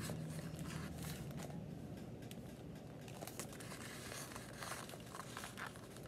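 Paper pages of a paperback graphic novel being flipped by hand, a run of soft, irregular rustles and crinkles.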